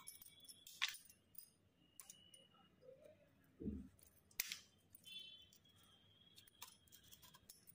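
Faint scattered clicks and light scrapes of a knife against a steel worktop while the peel of a raw green banana is scored lengthwise, with one soft low thump about halfway through.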